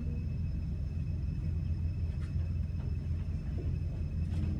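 Steady low room hum with a faint, steady high-pitched whine above it, and a few faint taps.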